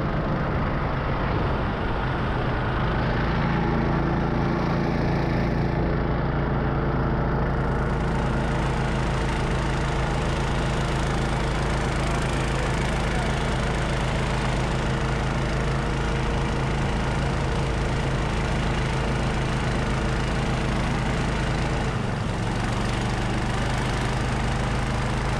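20 hp engine of a homemade snowmobile with a CVT running steadily under way across snow. The engine note dips briefly near the end, then picks up again.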